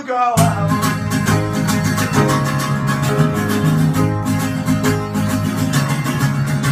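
Live band playing an instrumental passage: guitars strumming quickly over steady low bass notes, the band coming in loudly about half a second in.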